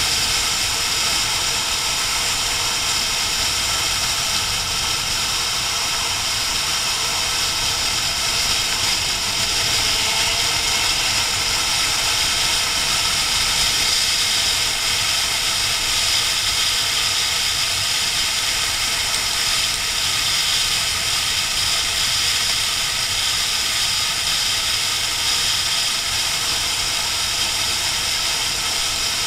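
Steady rushing wind and road noise on a camera mounted on a sport motorcycle riding at speed, with the bike's engine running underneath at an even pace.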